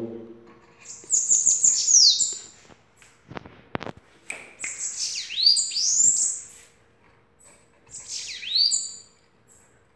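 Caged bananaquit (sibite) singing in three bursts of high, thin, rapid notes, each with sweeping down-slurred whistles. A few sharp clicks come between the first and second bursts.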